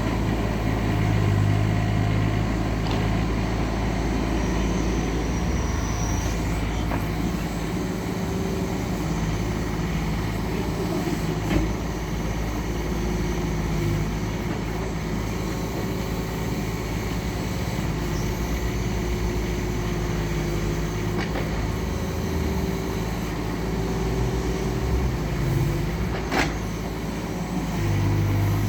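Doosan DX19 mini excavator's diesel engine running steadily under load, with a hydraulic whine that rises and falls as the arm works. Two sharp knocks come through, one near the middle and one near the end.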